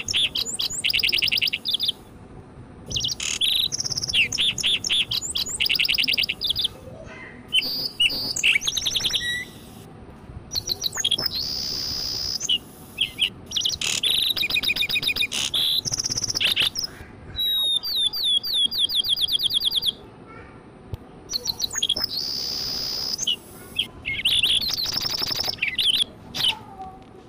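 Sparrow chirping and trilling in quick bursts of rapid high notes, each burst a second or two long with short pauses between.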